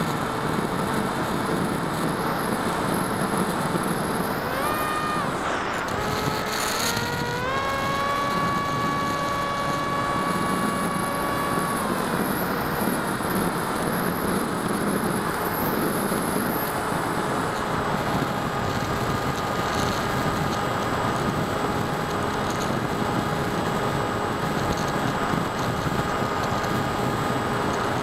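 Electric motor and propeller of a small FPV model plane whining over a steady rush of wind on the onboard camera's microphone. The whine climbs in pitch about five seconds in, dips, climbs again and holds until about twelve seconds in, then falls back as the throttle eases.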